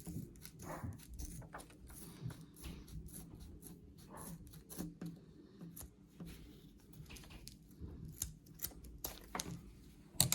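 Scissors cutting through a nylon belt strap, with scattered small clicks and rustles of the strap being handled, and a sharp click near the end.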